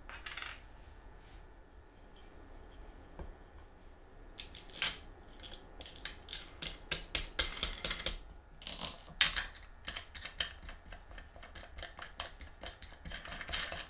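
Plastic star knob being turned down on its bolt on a plywood arm, a run of quick small clicks and scrapes that is busiest in the middle, with shorter scraping bursts at the start and near the end.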